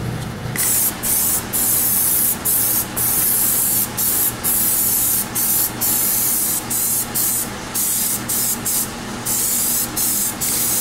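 Aerosol can of Plasti Dip liquid rubber spraying in a series of loud hissing passes, starting about half a second in and broken by short pauses every half second to a second as the nozzle is released between strokes.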